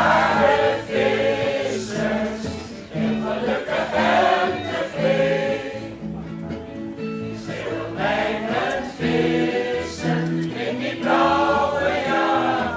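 A choir singing a song, with steady held low notes of an accompaniment underneath.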